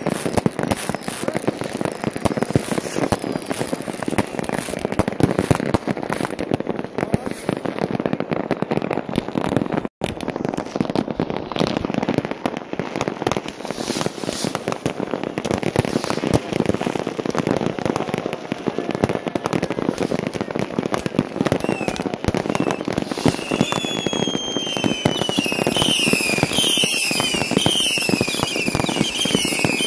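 Dense New Year's Eve fireworks from many batteries and firecrackers going off at once: a continuous crackle of bangs and pops. From about three-quarters of the way through, many short falling whistles of whistling fireworks join in, several a second.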